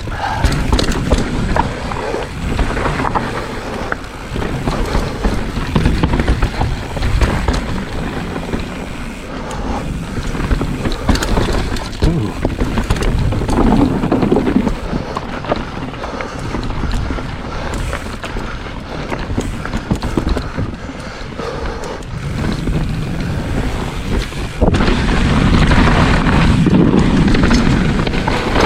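Kona Process 134 full-suspension mountain bike riding down a loose, rocky trail: tyres rolling over dirt and rock with constant knocks and rattles over bumps, and wind on the microphone. It gets louder and rougher near the end.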